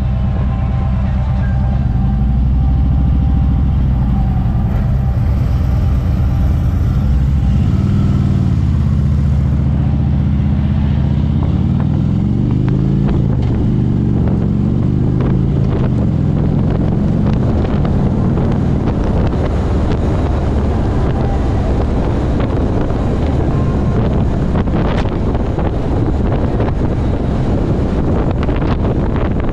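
Harley-Davidson V-twin motorcycle engine running under way, with wind rushing over the microphone. The engine note dips and rises a few times between about 8 and 16 seconds in as the bike slows and speeds up, then runs on steadily.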